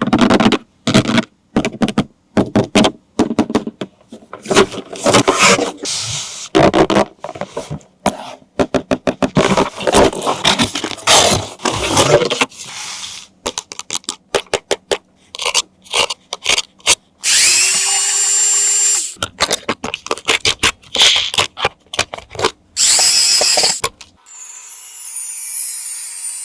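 Toy packaging and plastic parts being handled with many quick clicks and crackles, then a small electric motor in an RC toy car whirring steadily for about two seconds, with another short whir a few seconds later.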